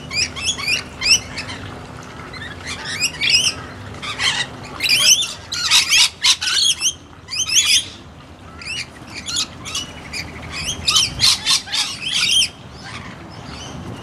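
A flock of rainbow lorikeets calling: many short, shrill screeches in quick clusters, with a brief lull about halfway through.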